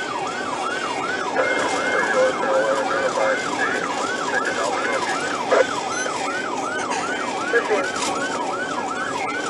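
Police patrol car siren on the fast yelp setting, a rapid rising-and-falling wail repeating about three times a second, heard from inside the pursuing cruiser over steady road noise.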